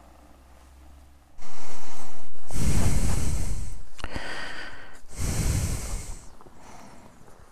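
A person breathing heavily right next to a helmet-mounted microphone: two loud, rushing breaths about two and a half seconds apart over a steady hiss that starts suddenly about a second and a half in.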